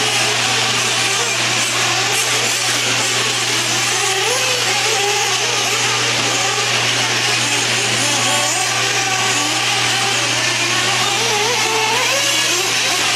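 Several 1/8-scale nitro truggies' small two-stroke glow engines running at high revs together, their pitch rising and falling as the cars accelerate and back off around the track, over a steady low hum.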